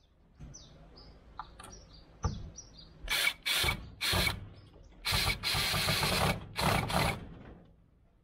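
Worx WU175 20 V cordless drill driver driving a screw into a wooden board in five short bursts, the longest a little over a second. Birds chirp faintly before the drill starts.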